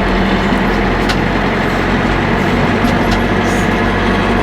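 Backhoe tractor's engine running steadily while the loader works dirt, with a couple of faint clicks about one and three seconds in.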